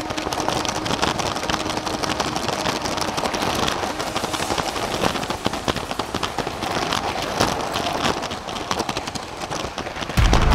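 Lego 9V train running on plastic track: a dense, rapid clatter of clicks from the wheels and couplings. Music cuts in right at the end.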